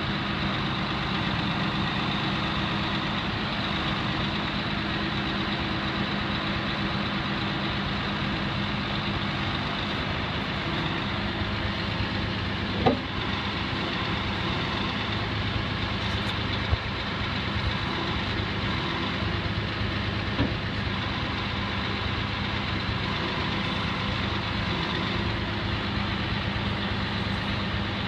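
Heavy truck's diesel engine idling steadily, with a few short clicks partway through.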